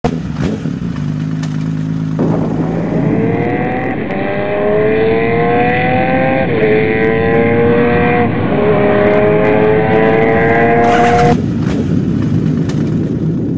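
Motorcycle engine idling, then revving up and accelerating through the gears: the engine note climbs, drops back twice at upshifts and climbs again. About eleven seconds in the engine note stops, leaving a steady rushing noise.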